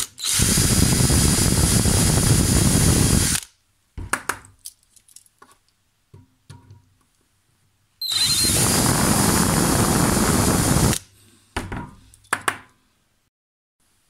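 Cordless drill running in two bursts of about three seconds each, drilling out the base of a die-cast Matchbox toy car, with a few short clicks and knocks between and after.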